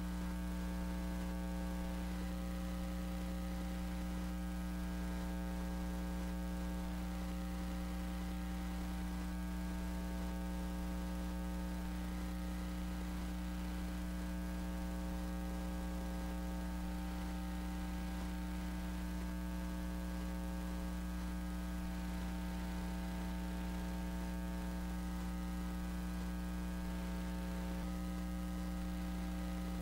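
Steady electrical mains hum in the audio feed, a low drone with many evenly spaced higher tones stacked above it and no other sound standing out.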